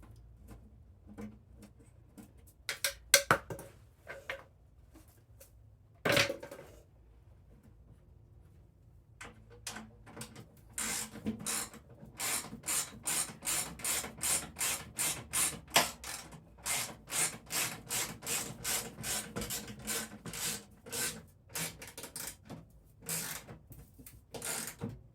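Bolts being run into a snowblower's sheet-metal belly pan with a hand tool: a fast, even series of short raspy strokes, about two to three a second, taking up most of the second half. It follows a few sharp metal knocks in the first six seconds.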